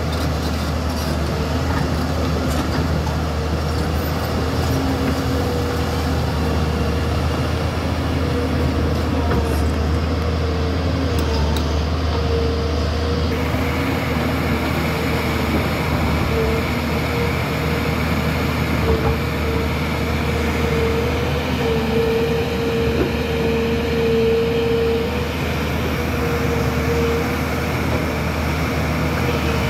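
JCB tracked excavator's diesel engine running under working load as the machine moves its boom and bucket: a steady low drone with a steady whine above it.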